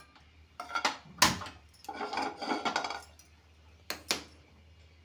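Metal cookware clattering on a gas stovetop: sharp knocks and a scraping rattle as a frying pan is shifted on the burner grate. The loudest knock comes about a second in, and a couple of sharp clicks follow near the end.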